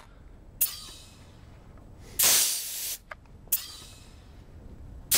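Bogert Aviation 30x air-driven strut booster pump cycling as it boosts shop air into an aircraft landing-gear strut. It lets out a long hiss of exhaust air about every three seconds, with short sharp puffs of air between.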